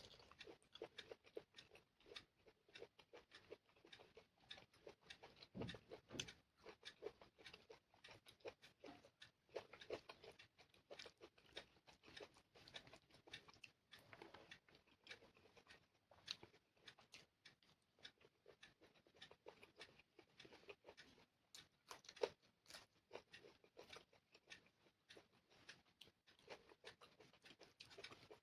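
Quiet close-up eating sounds: a person chewing and smacking on chicken curry and rice, a steady run of small wet mouth clicks with a few louder ones.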